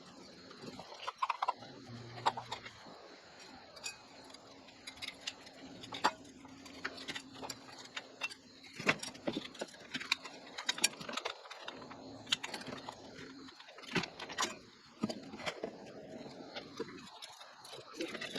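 Irregular small clicks and light metallic clinks, like parts and hardware being handled and fitted during a ceiling fan installation.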